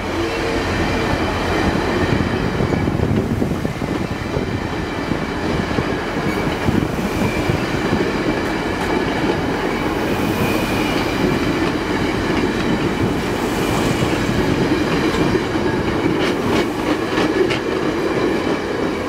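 Stainless-steel passenger cars of VIA Rail's Canadian rolling past close by, their steel wheels rumbling on the rails. Clicks from wheels crossing rail joints come in clusters, most of them near the end.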